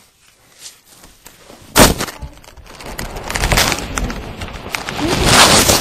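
A sudden thump about two seconds in, then a dense rustling and crunching that grows louder: loose packaging foam rubbing against the microphone.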